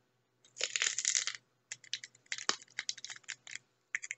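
Biting into a whole unpeeled banana, skin and all: a dense crackling crunch as the teeth go through the peel, then a run of short wet crackles and clicks as it is chewed.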